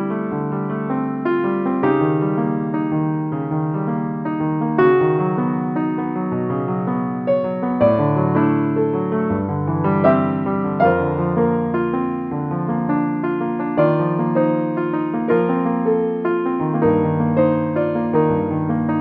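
Background music: a piano playing a gentle, flowing melody over sustained chords.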